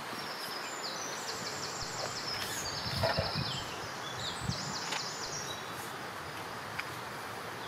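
A songbird singing three short phrases of fast, high trilled notes over a steady outdoor background hiss.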